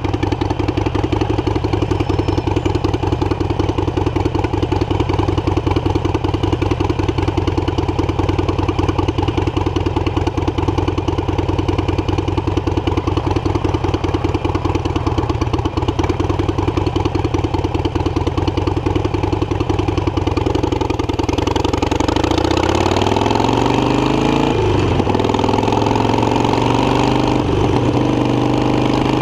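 Harley-Davidson Iron 883 Sportster's air-cooled V-twin idling steadily, then, about three quarters of the way in, pulling away with the revs rising and dropping back twice as it shifts up through the gears.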